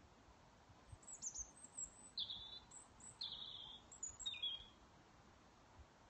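Eurasian blackbirds calling at dusk: a few thin, high calls starting about a second in, then three slightly lower notes spaced about a second apart.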